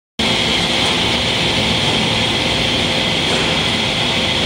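PS foam sheet extrusion line running: a loud, steady machine noise with a high, even whine held throughout and a fainter steady hum beneath.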